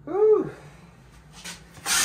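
A short vocal sound rising and then falling in pitch, about half a second long. Near the end comes a shovel blade scraping into dirt and stones.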